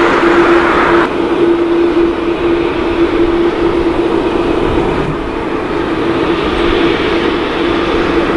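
Qantas Boeing 787-9 jet airliner taxiing: its engines give a steady hum with one constant tone over a rumble. A higher hiss drops away about a second in.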